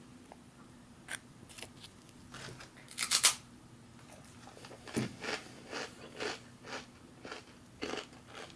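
Rye crispbread spread with roe being bitten and chewed: a loud crisp crunch about three seconds in, then crunchy chewing at about two chews a second.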